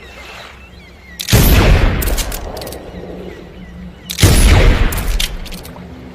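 Pistol gunshot sound effect: two shots about three seconds apart, each a sudden loud crack with a long rumbling echo that fades away, followed by a few short clicks.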